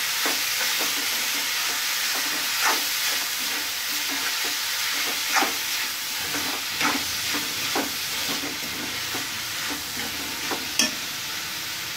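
Metal spatula stirring a vegetable-and-paneer mixture in a kadhai, with a steady sizzle of frying throughout. The spatula clicks sharply against the pan now and then.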